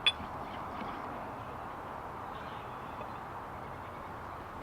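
A steady faint hiss of background noise, with a sharp metallic click right at the start and another at the end as a tool works against the brake caliper.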